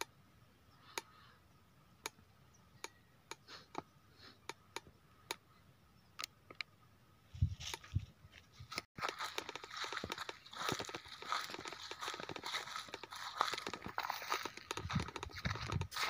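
Scattered single clicks, then from about seven seconds in dense crunching and crackling with occasional low thuds: footsteps on dry grass and gritty sandstone ground, close to the microphone.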